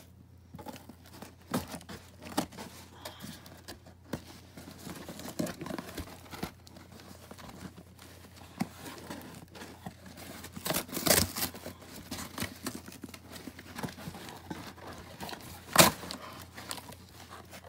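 Cardboard box being ripped open by hand: irregular tearing and crinkling of cardboard, with a louder burst of tearing about two-thirds of the way through and a sharp rip near the end.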